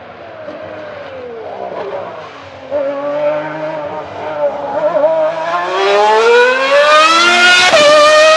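Ferrari 412 T2's 3.0-litre V12 Formula 1 engine braking and downshifting into a corner, its pitch falling. It then revs hard as it accelerates out, climbing through the gears with a sharp upshift near the end, and gets louder as the car draws near.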